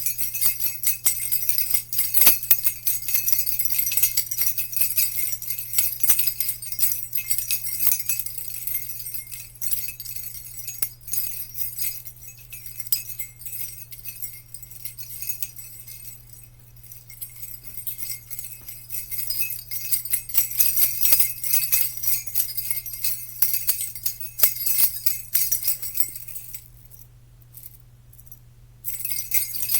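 Small jingle bells being shaken in a continuous, irregular jangle, dropping out for a couple of seconds near the end.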